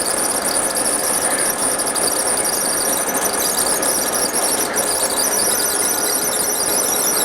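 Laser back-glass separator machine running, giving a steady high-pitched squeal.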